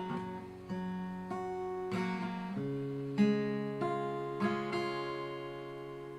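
Acoustic guitar played in a fingerpicking pattern combined with strumming: a thumb bass note, the 3rd and 1st strings plucked, then the index finger flicked down and up across the treble strings. The chord changes about two and a half seconds in.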